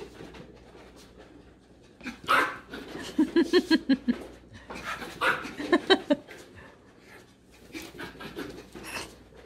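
Small Morkie (Maltese–Yorkshire terrier mix) puppy vocalising in play: a sharp burst about two seconds in, then two quick runs of short yips, each several to the second, and quieter sounds afterwards.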